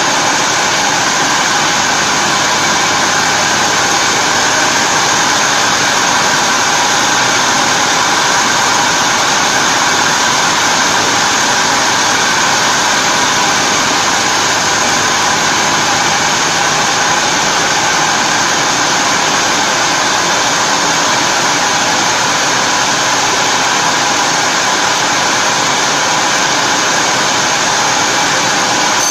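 Industrial gauze drying machine running: a loud, steady hiss of machinery with a few faint steady whining tones in it, unchanging throughout.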